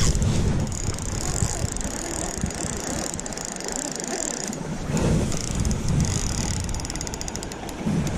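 Spinning reel working under load against a hooked lake trout: a high gear and drag whir that comes and goes, with a fast run of clicks near the end. Wind buffets the microphone throughout.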